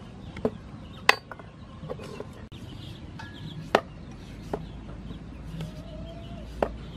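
Cleaver chopping a green papaya on a wooden chopping board: about six sharp, irregular knocks, three of them louder than the rest.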